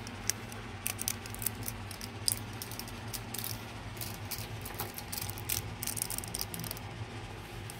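Chewing Toblerone milk chocolate with honey-almond nougat close to the microphone: small irregular crunches and mouth clicks.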